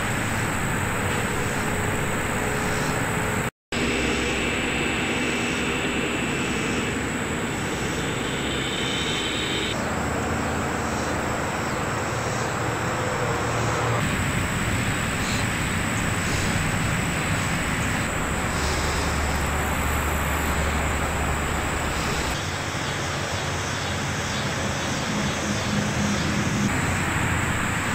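Steady outdoor background noise, a hum like distant traffic or an aircraft overhead. Its character changes abruptly several times, and it cuts out briefly about three and a half seconds in.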